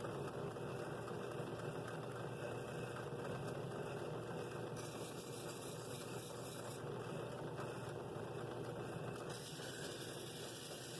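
Benchtop drill press running a sanding drum, its motor humming steadily while a wooden bowl is sanded against the drum; the hiss of the sanding shifts a little about five and nine seconds in.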